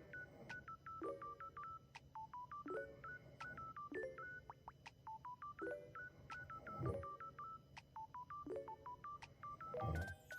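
Short electronic beep notes in quick succession, several a second, in a repeating melodic pattern like simple electronic music, with a low dull sound a little past halfway and a louder one near the end.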